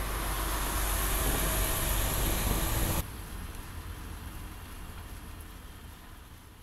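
Mercedes-Benz truck driving past on the road: steady tyre and wind noise over a low rumble. The noise drops abruptly about three seconds in to a quieter hiss that fades away.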